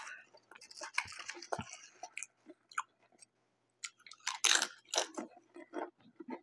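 Close-up chewing and crunching of potato chips, crisp crackling at first, then after a short pause a run of loud crunches as a fresh chip is bitten about four seconds in.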